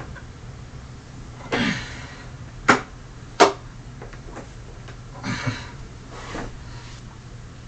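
Handling noises with the vacuum motor off: a brief rustle, two sharp knocks less than a second apart, then two more short rustles.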